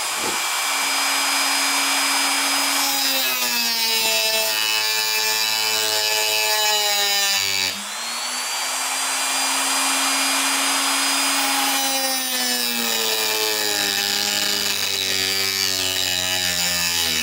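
Dremel rotary tool with a cut-off wheel running at high speed and grinding a slot into a stripped metal pocket-clip screw head, with a steady motor whine over a hiss of grinding. The whine drops in pitch twice, for a few seconds each time, as the wheel is pressed into the screw, and recovers between.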